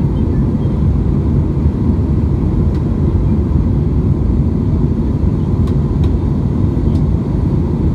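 Steady low rumble of an Airbus A319's jet engines and rushing air, heard inside the passenger cabin while the airliner climbs after takeoff.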